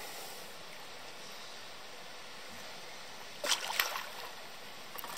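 Water splashing as a big catfish moves at the surface on the line: a few short splashes about three and a half seconds in, over a low steady hiss.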